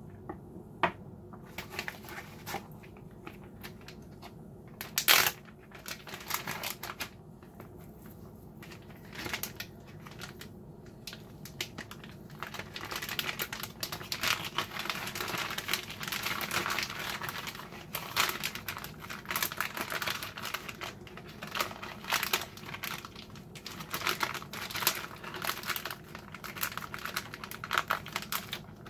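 Plastic zip-top freezer bag crinkling and rustling as a raw steak is slipped into it and pressed flat. Before that, a few scattered sharp clicks and knocks, the loudest about five seconds in.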